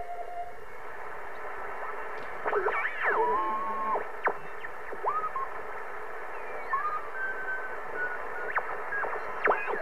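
Realistic DX-160 shortwave receiver on the 40-meter band with the BFO on. Steady band hiss carries whistling beat notes that swoop up and down in pitch and now and then hold briefly on a steady tone as the band spread dial is turned across signals.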